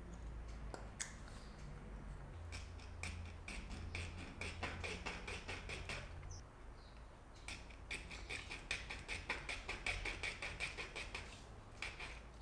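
Small hand file rasping across a white plastic Crush Grind mechanism part in quick repeated strokes, cutting grooves to give epoxy a grip. The filing starts a couple of seconds in and comes in two runs, with a pause of about a second midway.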